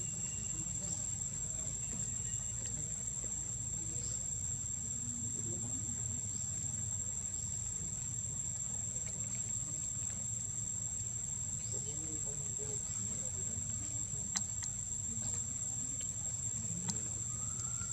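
Steady high-pitched insect drone of crickets or cicadas over a low steady rumble, with a couple of short clicks near the end.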